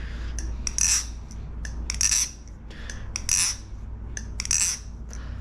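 Thomas Balisong Refault butterfly knife being flipped: sharp metallic clacks with a brief high ring as the handles swing around and snap against the blade, the four loudest about a second apart with lighter clicks between them. It sounds great.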